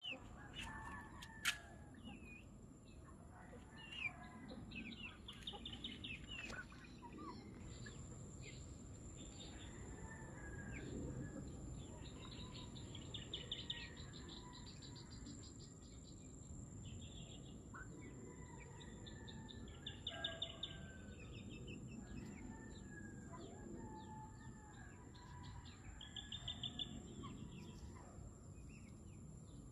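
Small birds chirping, with a short rapid trill that comes back every few seconds, over a thin steady high tone.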